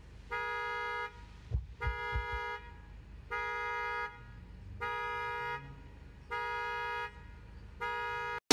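A Honda Odyssey minivan's alarm sounds its horn in a steady pattern, six honks about a second and a half apart. The alarm was set off by someone trying to open the locked door. A few low thumps come about two seconds in.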